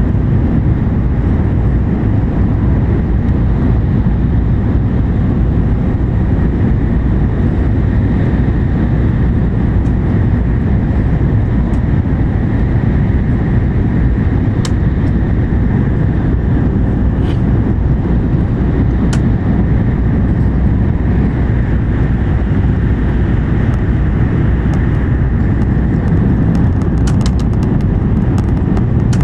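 Inside the passenger cabin of an N700-series Shinkansen running at speed through a tunnel: a loud, steady, deep rumble with a lighter hiss over it. A few faint clicks come through now and then, more of them near the end.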